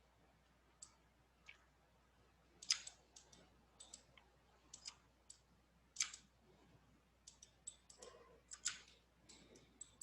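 Irregular clicks of a computer mouse and keyboard being worked, a dozen or so short sharp clicks at uneven spacing over a quiet background, two of them louder, about three and six seconds in.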